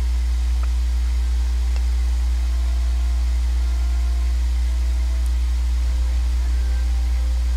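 Electric fan running, a steady low hum with no change in level.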